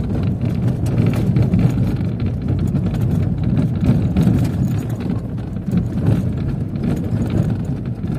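Car driving on an unpaved dirt road, heard from inside the cabin: a steady low rumble of tyres and engine, with many small rattles and knocks from the rough surface.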